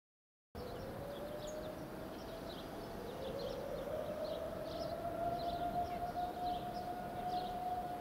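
Outdoor warning sirens winding up, their pitch climbing slowly to a steady tone. A second siren joins about three seconds in and rises to the same pitch. Short high chirps, like birds, sound over them.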